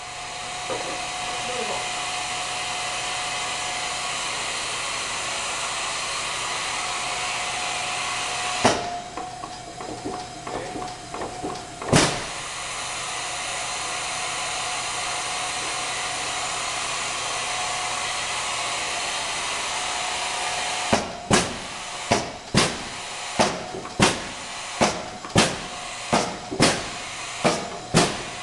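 Mechanical flywheel punch press running, its motor and flywheel giving a steady whir with a constant whine. The ram strikes twice, singly, about a third of the way in, with a light rattle of clicks between the strokes. From about three quarters of the way in the press cycles continuously, about three strokes every two seconds.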